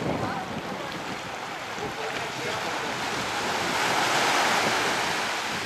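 Wind buffeting the microphone over choppy surf, a steady rushing noise that swells louder about four seconds in.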